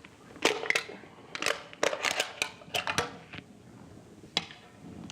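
Handling noise on a hand-held microphone: a run of irregular clicks and knocks, most of them in the first three seconds or so.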